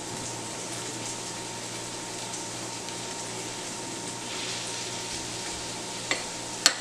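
Steady hiss with a faint low hum, and a few sharp clicks near the end as a metal spoon knocks against a small glass bowl.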